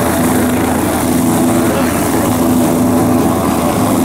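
Police helicopter running steadily on the ground, its turbine engine and main rotor turning.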